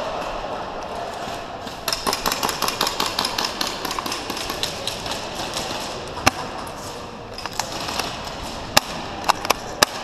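Airsoft gunfire: a fast run of rapid shots about two seconds in, lasting a couple of seconds, like an electric airsoft rifle on full auto, then five single sharp cracks of shots or BB hits in the last few seconds.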